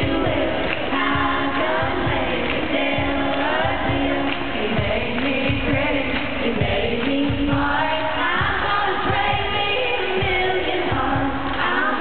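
Live country music: women singing together into microphones over a full band.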